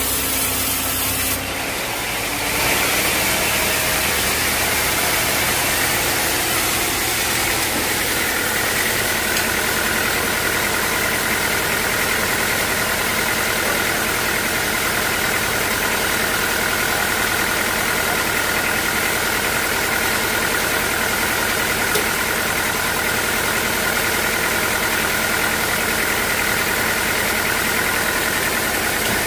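Sawmill machinery running steadily, with a high whine that sets in about eight seconds in and holds.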